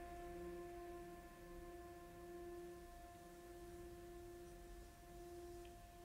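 Faint background music: a few steady held tones ringing together and slowly fading.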